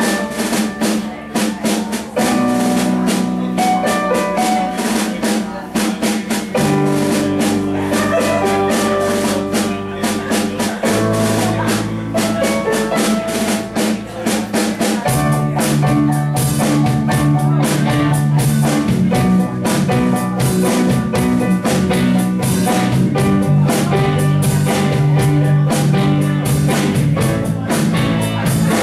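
Live band playing a pop-rock song: a drum kit keeps a steady beat under electric bass and keyboard. The bass gets fuller about halfway through.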